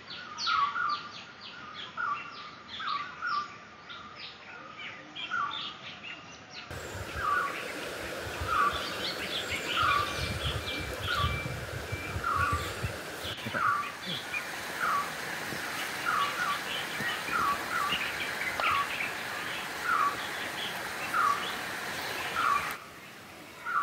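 A bird calling over and over, one short note repeated a little faster than once a second, with fainter higher chirps from other birds around it.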